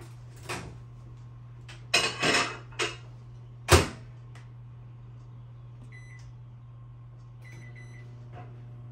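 Microwave oven door opened and slammed shut, with a sharp bang as the loudest sound, then two keypad beeps, after which the microwave starts running with a low steady hum.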